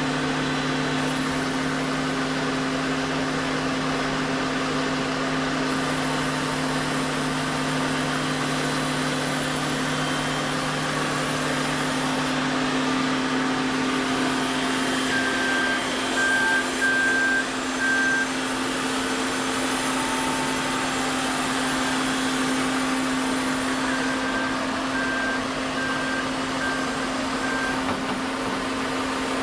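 Heavy construction machine's engine running steadily with a constant hum, and a reversing alarm beeping in two short spells, in the middle of the stretch and again near the end.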